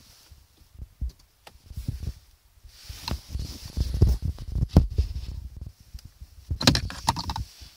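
Rustling handling noise with irregular knocks and a few sharp clicks, as the Bluefin tuner's lead is unplugged from the car's diagnostic port under the dashboard.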